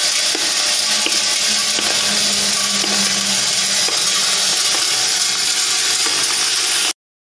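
Vibratory bowl feeder running, a steady hum under a dense metallic rattle of steel bike-chain pins jostling along the bowl's track and into the feed tubes, with many small clinks. It cuts off suddenly near the end.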